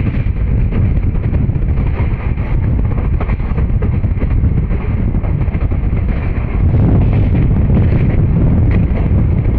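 Train running at speed: a loud rumble of wheels on rails, with a faint rattle and wind buffeting the microphone, while another train's coaches pass close alongside. The rumble gets louder about seven seconds in.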